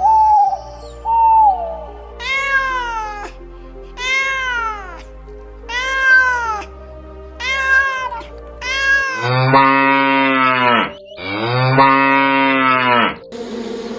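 Domestic cat meowing five times in a row, each meow about a second long with a rise and fall in pitch. It is followed by two longer, much deeper drawn-out animal calls.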